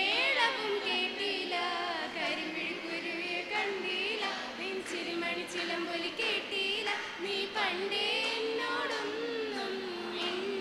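A group of voices singing a song together through stage microphones, with long held notes.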